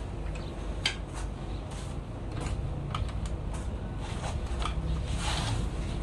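Hand ratchet wrench with a long extension clicking in short, irregular runs as bolts are turned at the rear housing of a diesel engine, with a few metal clinks, over a steady low hum.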